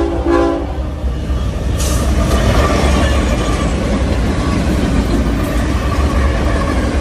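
BNSF diesel freight locomotives passing close at speed, pulling a double-stack intermodal train. The air horn's last blast cuts off within the first second, then steady engine and wheel rumble, with a short hiss about two seconds in.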